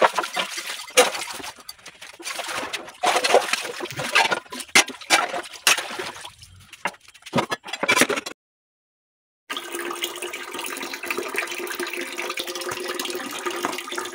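Dishes, pots and mugs clinking and knocking as they are washed by hand, with splashing water, for about eight seconds. Then, after a cut, a tap runs a steady stream into a half-full concrete wash tank, a continuous filling rush with a faint steady pitch.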